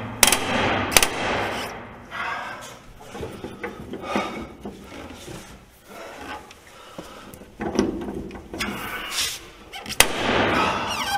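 A rusted body-mount bolt with galled threads is being turned out with a socket and extension. There are sharp cracks just after the start, about a second in and about ten seconds in, and rasping, creaking thread noise between them as the bolt grinds round.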